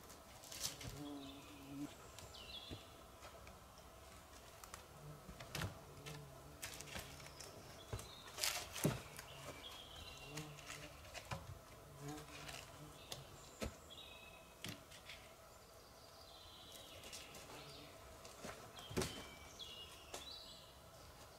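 Scattered sharp wooden knocks and clatter of long poles being handled against a log shelter frame, the loudest a little before halfway, with birds chirping now and then in the background.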